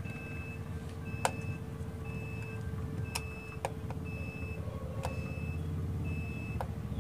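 Short high electronic beeps repeating about once a second, over a steady low hum, with a few faint clicks.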